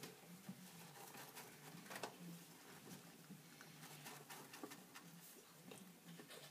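Hamster eating: faint, irregular little crunching clicks of its teeth on food, one louder click about two seconds in.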